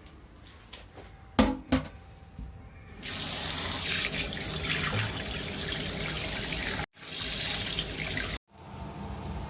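Two sharp clinks of kitchenware, then a tap running into a sink from about three seconds in, cut off abruptly twice, with a softer steady hiss after the second break.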